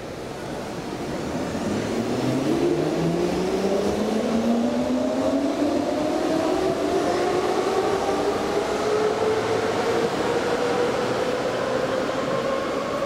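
Hamburg U-Bahn train pulling away: its electric traction motors whine, rising steadily in pitch as it accelerates, over the rumble of the train.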